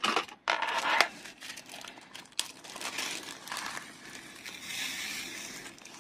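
A small plastic zip-lock bag crinkling as it is handled and opened, with a few sharp crackles in the first second. In the second half comes a steadier light rustle as small resin diamond-painting drills pour from the bag into a plastic tray.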